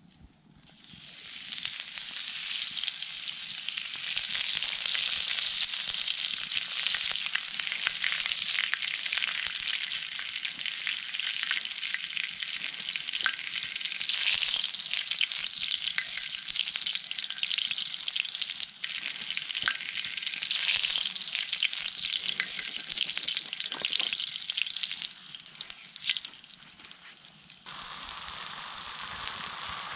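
Split quails sizzling as they are laid one after another onto a hot oiled steel disc over a wood fire, the hiss swelling several times and then quieter near the end.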